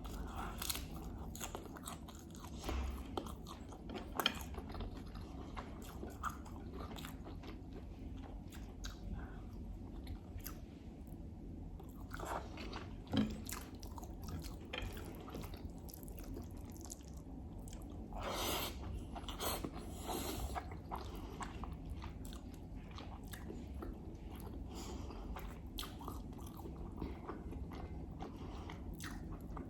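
A person chewing and biting food close to the microphone: a steady run of small mouth clicks and bites, with a sharper click about 13 seconds in and a longer noisy stretch of chewing about two-thirds of the way through. The food is ghormeh sabzi herb stew and baghali polo, a dill-and-fava-bean rice, with lamb.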